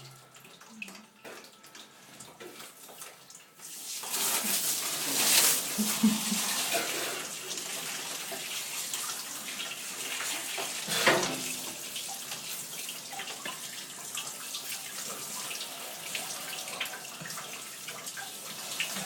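Water running steadily out of a cut 3/4-inch pipe. After a few faint clicks, the rush starts about four seconds in and keeps going, with a sharp knock a little past halfway.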